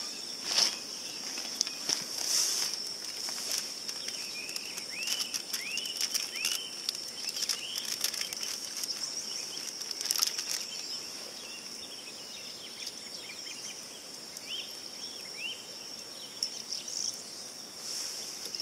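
Outdoor ambience: a steady high insect drone, with a bird calling in repeated short curved chirps at two points. A few sharp clicks and knocks as camping gear and food packets are handled and set down on the cloth and stones.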